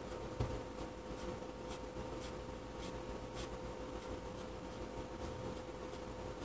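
Ink pen scratching across paper in short, quick strokes, about two a second, as hatching lines are inked. There is a light knock about half a second in, and a faint steady hum underneath.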